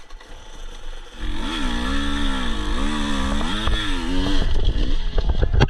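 Husqvarna TE 250i two-stroke enduro engine revved up and down repeatedly, the pitch rising and falling several times, as the bike works at a steep rocky climb. Near the end come a few sharp knocks and clatter.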